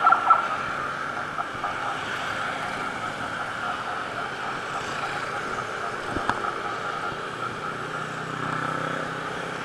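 Wind rushing over the microphone of a moving bicycle, with steady city traffic noise. A brief loud trilling tone sounds right at the start, and a single click comes about six seconds in.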